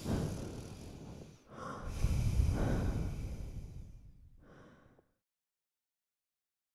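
Close-miked human breathing: two heavy, noisy breaths, the second the loudest, then a fainter short one, cutting to complete silence about five seconds in.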